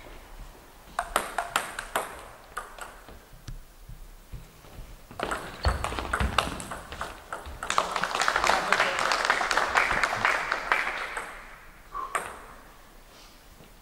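Table tennis rally: the celluloid ball clicks sharply off the bats and table. About five seconds in a denser, louder stretch of clicks begins, mixed with spectators' voices, and fades out near the end.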